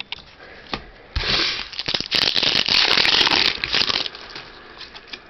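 Foil or plastic trading card pack wrapper being crinkled and torn open, a loud crackling rustle of about three seconds starting about a second in, with lighter handling rustles around it.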